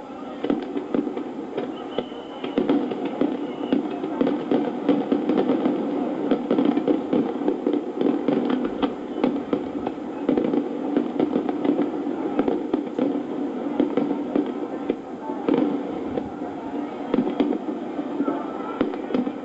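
Fireworks display: many shells bursting and crackling in quick, irregular succession, heard through television broadcast audio.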